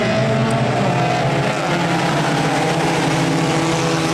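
A pack of Bandit-class stock race cars running together, the engines of many cars overlapping in a steady drone as the field goes through a turn.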